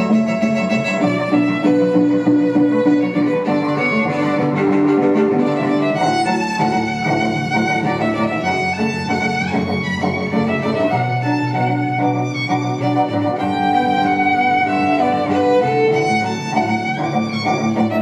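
Music played on bowed strings, led by violin, with sustained melodic notes at a steady level.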